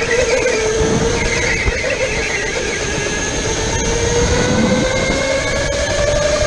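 Go-kart motor whining at speed, its pitch dipping slightly about half a second in and then climbing steadily as the kart accelerates. Tyres squeal briefly on the concrete through a corner between about one and two and a half seconds in.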